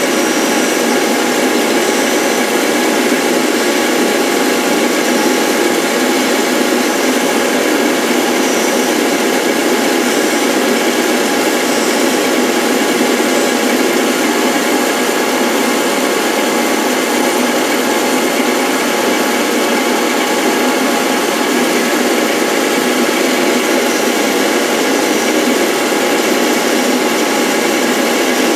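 MDF rose engine lathe running an ornamental cutting pass into the end of a wooden disc: a steady mechanical whir with several constant tones from its motor drive and spinning cutter.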